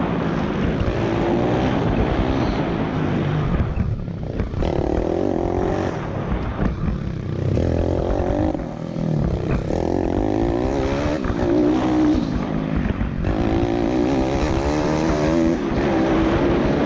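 Pit bike's single-cylinder four-stroke engine under hard riding, revving up and down. The throttle is chopped three times, with the pitch dropping each time before climbing again under acceleration. Wind noise on the helmet camera runs throughout.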